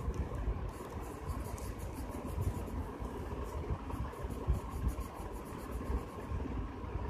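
Faint scratching of a pen drawing on paper over a steady low background rumble.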